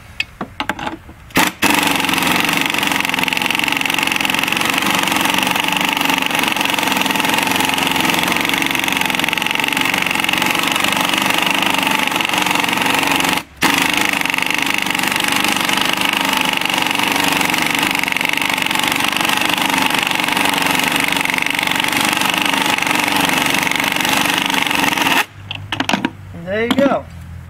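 Pneumatic impact wrench hammering steadily on the forcing screw of a pulley puller, drawing the pulley off a power steering pump shaft. It starts about a second and a half in, stops for a moment around the middle, then runs again until a couple of seconds before the end, followed by a few light metal clinks.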